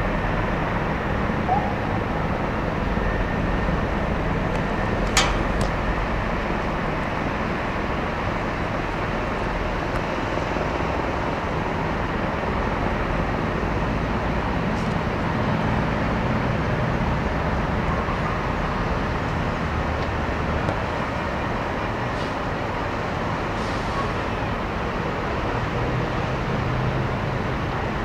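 Steady outdoor din of engines and heavy machinery, with a single sharp click about five seconds in.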